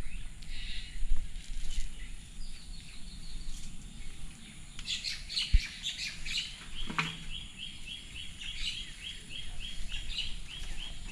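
Birds chirping, with one bird repeating a short high note about three times a second through the second half. A single dull thump comes about five and a half seconds in.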